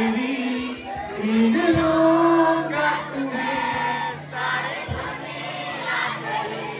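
Singing over music, with long held notes; it sounds like several voices singing together.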